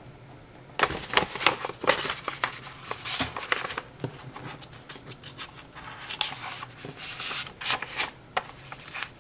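Paper rustling and scraping as a greeting card and its paper envelope are handled and slid across a countertop. It starts about a second in, as a busy run of short crinkles, scrapes and light knocks.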